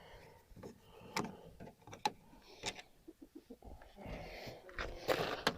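Faint, scattered clicks and light knocks of plastic door trim being handled and pushed into place on a ute door, with a rougher rustle of handling near the end.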